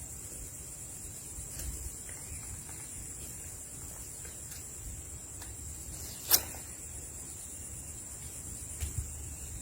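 Insects, crickets or similar, chirring in a steady high-pitched drone on two pitches. A single sharp click about six seconds in.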